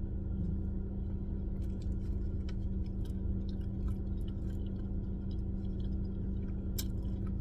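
Chewing and small wet mouth clicks from someone eating a chili cheese dog, with one sharper click near the end. A steady low hum runs underneath inside the car cabin.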